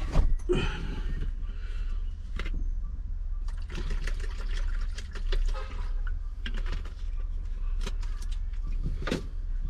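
Toiletries and plastic items clicking and rustling as they are handled in a plastic basin, with water sloshing and pouring from a plastic water bottle for washing up, over a steady low hum.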